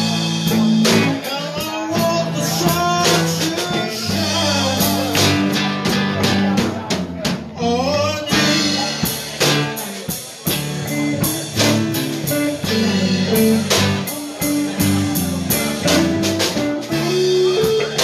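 Live blues band playing: electric guitars over a drum kit, with bent guitar notes about eight seconds in.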